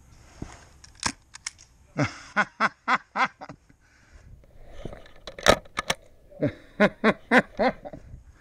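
Airsoft gun shots as sharp cracks, a few about a second in and again past the middle, among two runs of four short, falling-pitched calls about three a second.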